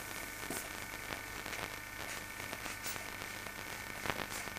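Steady hiss and electrical hum of an old home-video recording, with a few faint ticks, one about four seconds in.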